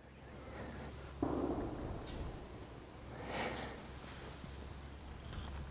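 Insects, crickets or similar, trilling in the woods as one steady high-pitched note that doesn't stop. A few faint, brief noises sound underneath, about a second in and again near the middle.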